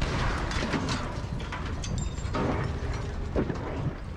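A large explosion goes off, followed by a long crackling clatter as debris and dust come down.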